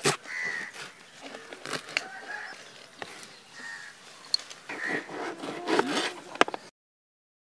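Kitchen knife chopping coriander and ginger on a plastic cutting board: scattered sharp taps of the blade on the board, with birds calling in the background. The sound cuts off abruptly near the end.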